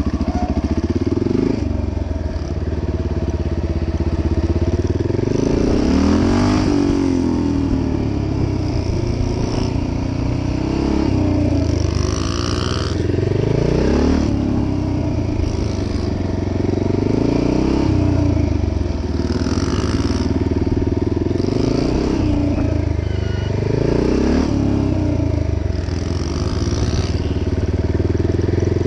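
Dirt bike engine revving up and easing off over and over, rising in pitch every two to three seconds as the bike accelerates out of tight cone turns and slows into the next.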